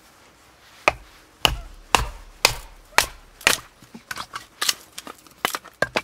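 Firewood being split by hand: six sharp, evenly spaced strikes about half a second apart, then a quicker run of lighter knocks.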